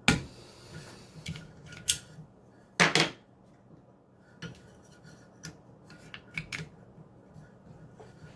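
Hard clicks and clacks of sharpening gear being handled: a sharp knock at the start, another about two seconds in, a short rattling clatter around three seconds, then lighter scattered clicks.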